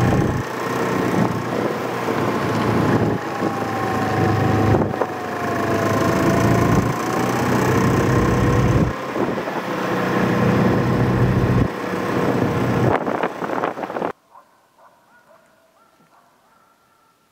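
Snowmobile engine running while travelling over snow, its pitch rising and falling with speed, with wind on the microphone. About 14 seconds in it cuts off abruptly to near quiet.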